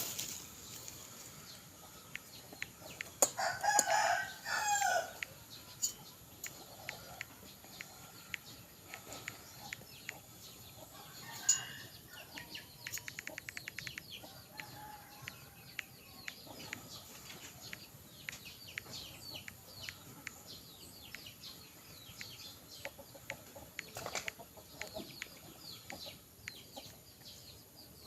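A rooster crowing once, about three seconds in. Scattered faint clicks and chirps run throughout, with a short spell of rapid ticking near the middle.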